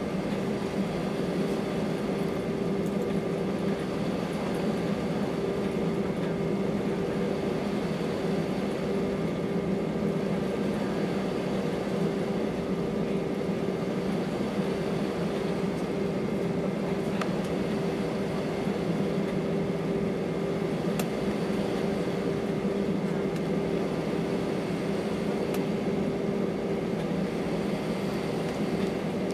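Steady cabin noise inside an Airbus A319 as it taxis: the engines run at idle with a constant low hum under a steady air hiss.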